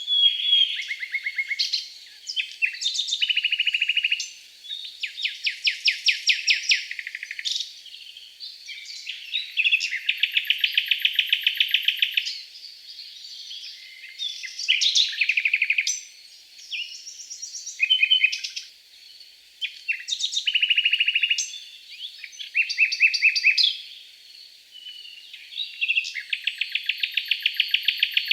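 Songbirds singing in the forest: phrase after phrase of fast trills and rapid repeated notes, each lasting a second or two with short pauses between, and a few very high, thin notes now and then.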